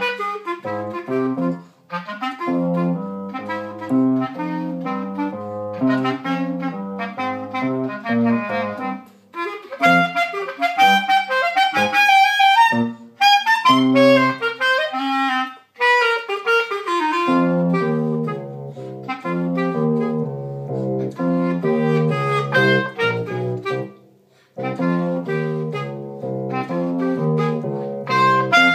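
Clarinet playing a lively graded exam piece at grade 5 level, in quick-changing notes and runs with a few short breaks between phrases.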